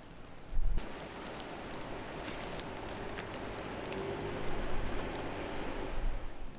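Beef sizzling as it is seared, starting abruptly about a second in after a low thump, with scattered crackles through the steady hiss.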